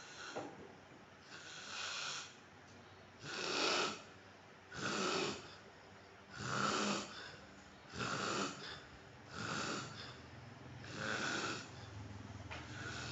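Man snoring in his sleep, a regular run of snores coming about every one and a half seconds.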